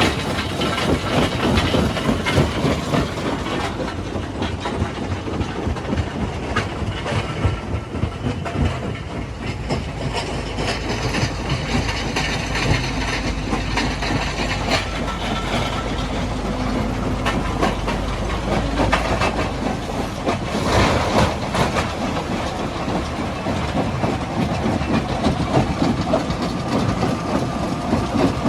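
Jaw crusher running and crushing rock, a steady loud rumble with a dense clatter of stones knocking and grinding.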